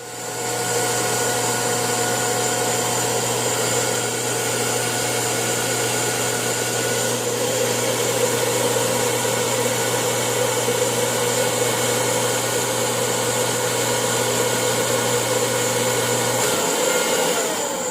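TIG welding arc burning steadily: an even hiss with a low, steady buzz, struck at the start and swelling over the first second. The buzz cuts off about a second before the end, when the torch is lifted and the arc breaks.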